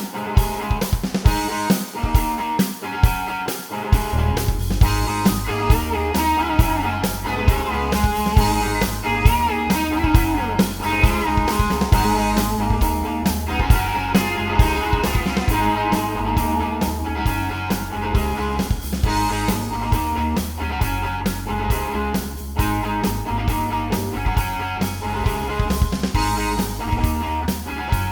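Background rock music with guitar over a steady drum beat; a bass line comes in about four seconds in.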